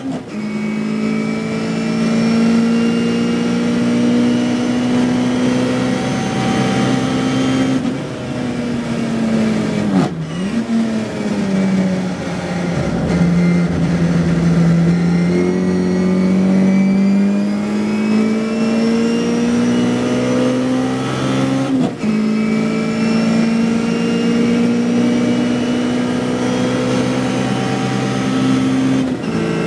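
Mini Miglia race car's A-series four-cylinder engine heard from inside the cockpit, working hard at high revs on a flying lap. The revs fall away around ten seconds in as the car slows for a corner. They then climb steadily as it accelerates, and a quick upshift about 22 seconds in drops the pitch before the revs build again.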